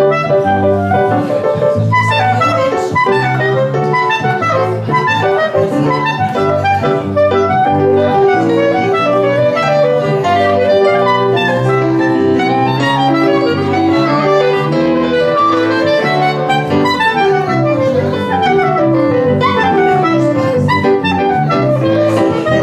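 Live jazz from a clarinet, piano and bass trio: the clarinet plays the melody over piano chords and a bass line, with fast running phrases in the second half.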